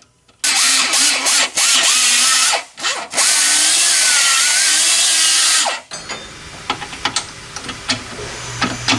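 Grinder cutting into a metal motor mount to open clearance for an alignment bolt: a loud grinding whine with a wavering pitch, broken by two brief pauses, stopping about six seconds in. After it, lighter clicks and taps.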